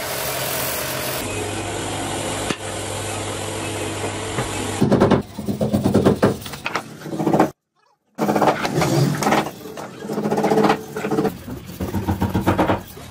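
Electric wood-turning lathe running with a steady hum. About five seconds in, the hum gives way to louder, irregular bursts of sound. These are broken by a brief total silence near the middle.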